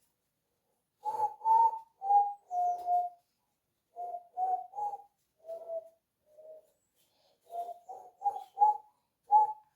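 A person whistling a tune in short notes, in three phrases separated by brief pauses.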